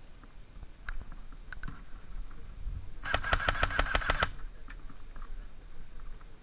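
Airsoft electric gun firing a short full-auto burst: about ten rapid cracks in just over a second, about three seconds in.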